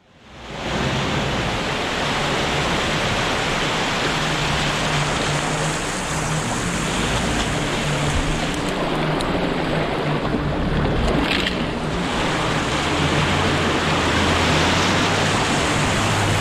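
Off-road 4x4s driving through deep mud and water-filled ruts: engines running under load beneath a steady rush of splashing water and churned mud. It fades in at the start, and an engine's low hum grows stronger near the end.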